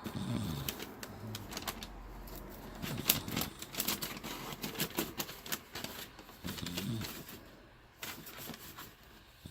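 A woman snoring in her sleep: three low snores about three seconds apart, with scattered clicking sounds between them.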